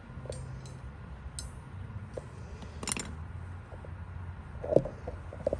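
Scattered light clicks and taps of small objects being handled, with a sharper knock about three seconds in and a few more near the end, over a low steady rumble.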